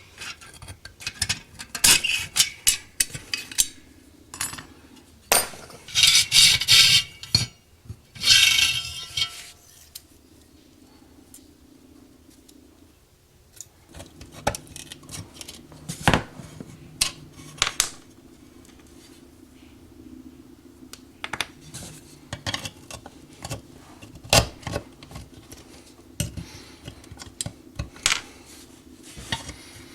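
Small metal parts and hand tools clinking and scraping against each other: a run of sharp clicks with several longer rasping scrapes in the first ten seconds, then sparser clicks.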